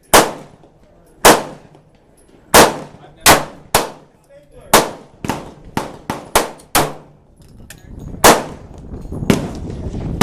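Gunshots at a shooting range: a dozen or more sharp reports of differing loudness at irregular intervals, some in quick succession, each trailing off briefly.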